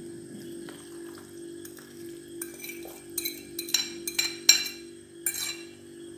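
A metal utensil clinking and scraping against a bowl, about half a dozen sharp clinks in the second half, as mashed boiled cauliflower is tipped out into another bowl. A steady low hum runs underneath.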